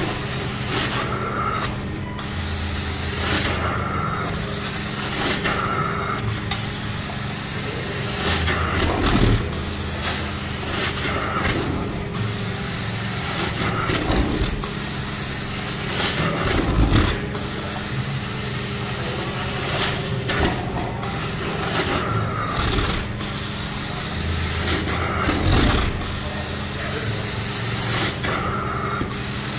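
Carpet steam-cleaning (hot-water extraction) wand drawn across carpet in repeated strokes. It gives a loud hiss of spray and suction over the extractor's steady hum, and the hiss breaks off briefly every few seconds between strokes.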